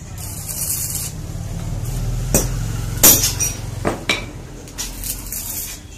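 Stick (arc) welding a steel patch strip onto a motorcycle's sheet-steel side box: the arc crackles and hisses in spells over a steady low hum. A few sharp metallic clicks fall between about two and four seconds in.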